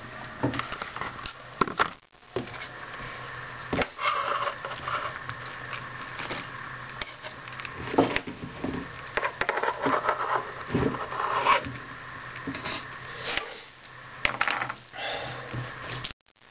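A knife and a hand scraping and sliding chopped fruit and vegetables across a kitchen countertop, with irregular knocks, taps and scrapes.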